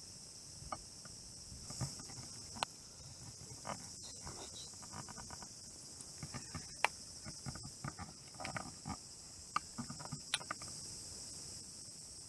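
A steady high-pitched insect chorus, with scattered faint clicks and short knocks mixed in.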